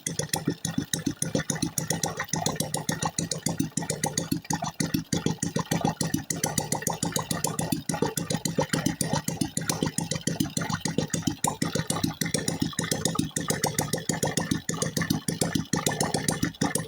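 Freshly overhauled engine idling steadily with a fast, even beat, running while its oil pump line is checked for oil flow.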